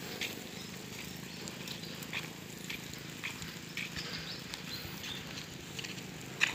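Footsteps on brick paving, about two steps a second, over a faint steady outdoor hum.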